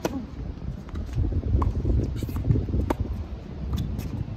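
Tennis rally on a hard court: a serve struck sharply at the start, then sharp pops of rackets hitting the ball and the ball bouncing, about four more over the next few seconds, over a low rumble.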